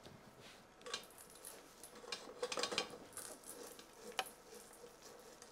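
Wooden spoon stirring and scraping in a stainless steel saucepan: faint, irregular clinks and scrapes, busiest about two to three seconds in.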